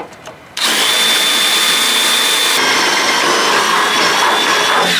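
Electric drill running under load, boring a hole through the wooden transom board. It starts suddenly about half a second in, with a steady high whine over the noise of the bit cutting, shifts in tone partway through, and stops suddenly near the end.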